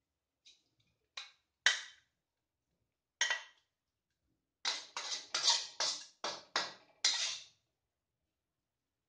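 Metal spatula scraping and clinking against a steel wok while scooping stir-fried water spinach onto a plate: a few scattered strokes, then a quick run of about six strokes in the middle.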